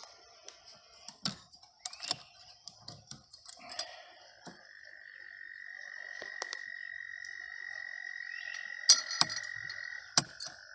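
A frog trilling, one steady high-pitched trill that starts about four seconds in and carries on, over scattered small clicks and taps from handling, with two sharper clicks near the end.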